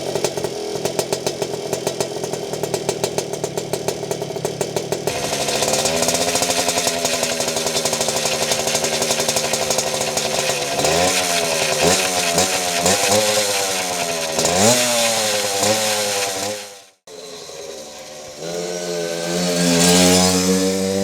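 Puch Maxi moped's two-stroke single-cylinder engine through a Tecno Circuit TWIN exhaust: idling with a rapid popping rhythm, then held at higher steady revs about five seconds in, then blipped up and down several times. After a sudden cut near the end, the moped rides past, getting louder and then falling in pitch as it goes by.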